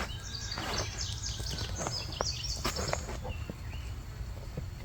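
Hands digging and scraping through dry container soil to unearth potatoes, giving scratchy rustles and a few short clicks, mostly in the first three seconds. Birds chirp faintly in the background.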